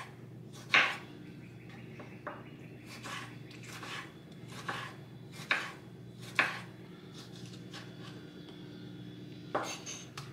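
Chef's knife cutting tomatoes into small cubes on a bamboo cutting board: irregular knocks of the blade meeting the board, a second or more apart, over a faint steady hum.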